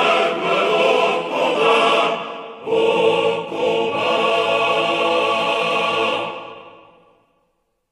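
Men's military choir singing. After a short break a little over two seconds in, they sing a final long held chord, which fades away a second or so before the end.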